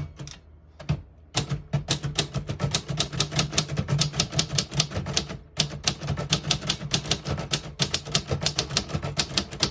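1954 Royal Senior Companion manual portable typewriter being typed on: a single click about a second in, then a fast, even run of key strikes with a short pause about halfway through.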